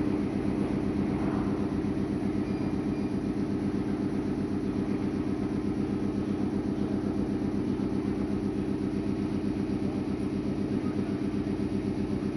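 Meitetsu 6500 series electric train standing at the platform, giving a steady low hum with a fast, even pulsing.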